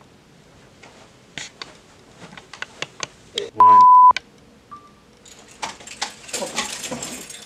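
A loud, steady electronic beep at a single pitch, about half a second long, a little past the middle, over a brief bit of voice. Light scattered clicks come before it, and a rustling hiss fills the last two seconds.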